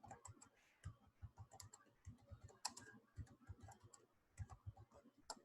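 Faint computer keyboard keystrokes, a quick irregular run of clicks, several a second: Control V pressed over and over to paste copies.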